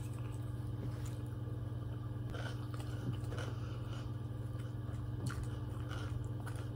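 Quiet chewing of a mouthful of noodles, with a few faint clicks from plastic cutlery, over a steady low hum.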